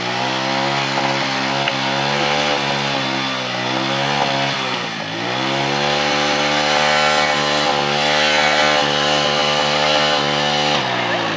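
TVS Victor motorcycle's single-cylinder four-stroke engine running at high revs while the bike stands still. The revs sag briefly about five seconds in, climb again, and drop away near the end.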